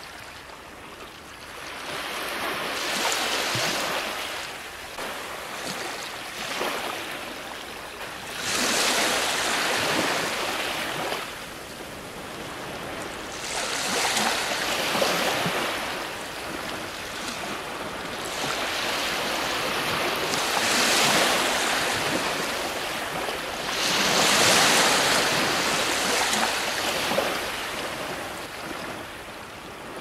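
Ocean surf breaking on the shore in slow surges. It builds and fades about five times, each wash lasting several seconds.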